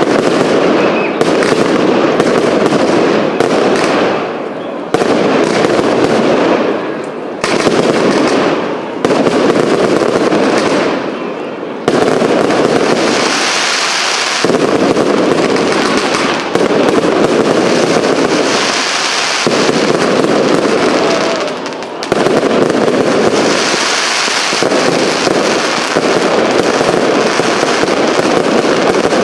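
Aerial fireworks display: a dense, continuous barrage of shell bursts and crackling, with the sound cutting and jumping in level abruptly several times.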